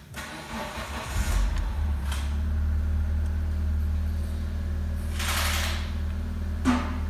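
Mitsubishi 4G13 1.3-litre fuel-injected four-cylinder petrol engine starting on the starter and catching after about a second, then running at a steady idle around 1000 rpm. A brief rushing noise about five seconds in.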